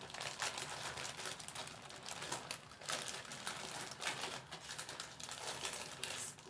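Plastic ice cream packaging crinkling as it is handled and opened, in quiet, irregular crackles.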